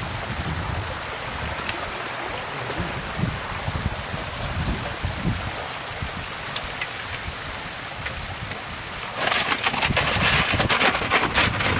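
Steady watery hiss with wind rumbling on the microphone. About nine seconds in, a louder spell of rapid splashing lasts about three seconds.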